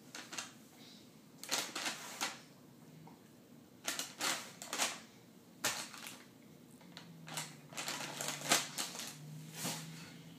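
Facial tissues and their cardboard box rustling and crinkling as a baby pulls and handles them, in several short bursts with quiet gaps between.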